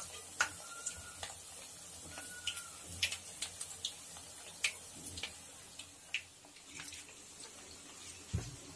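Pieces of sweet flour-and-semolina dough deep-frying in hot oil in an iron kadhai: a soft steady sizzle with scattered sharp crackles and pops. A low knock comes near the end as a metal skimmer goes into the pan.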